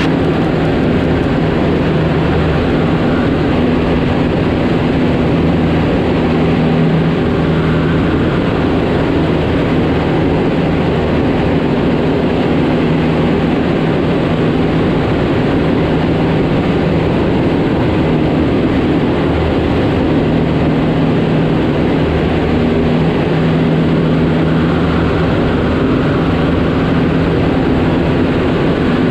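Cessna 152's four-cylinder Lycoming engine and propeller droning steadily in level cruise, heard inside the cockpit, with no change in power.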